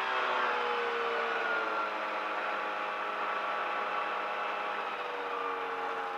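Light aircraft engine running steadily just after its run-up and magneto check, its pitch sinking slowly as it settles back down. Heard through the cockpit intercom feed.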